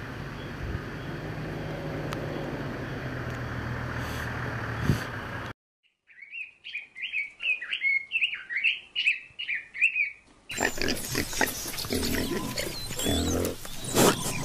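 An animal giving a run of quick, high chirping squeals for about four seconds in the middle. Before it there is a steady noisy rumble and a short dropout, and after it comes a burst of rustling and knocks.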